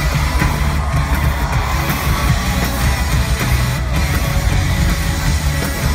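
Live band playing loud rock music on drums and guitar.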